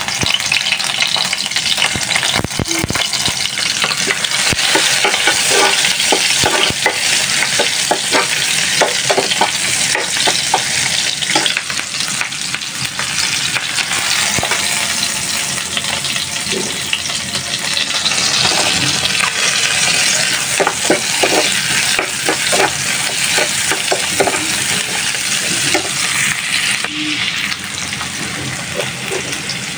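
Chopped garlic, sliced onion and green chillies sizzling steadily in hot oil in a frying pan. A metal spoon clicks and scrapes against the pan as the mixture is stirred.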